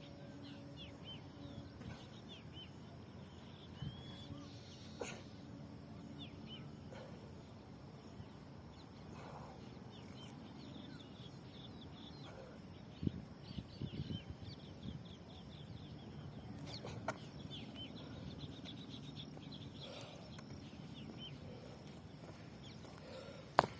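Birds chirping in a steady outdoor chorus of many short, high chirps. There are a few knocks about halfway through and a sharp click near the end.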